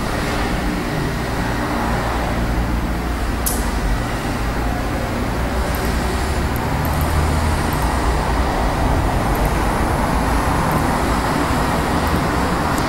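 Steady low rumble and hiss, with one short, sharp click about three and a half seconds in.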